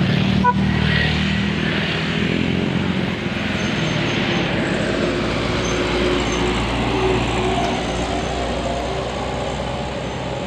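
Heavy diesel engine of an intercity bus running at low speed close by, a steady low rumble with road and traffic noise over it.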